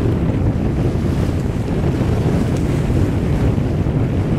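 Steady wind buffeting the microphone, over the wash of choppy water and waves.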